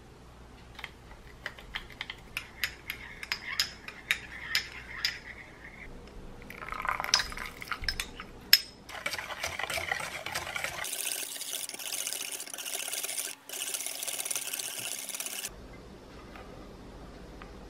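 Baking ingredients being added to a stainless-steel mixing bowl with a wire whisk in it: first a run of light clicks, about three a second, then rustling and a sharp tap, then a steady hiss of pouring for several seconds that stops suddenly.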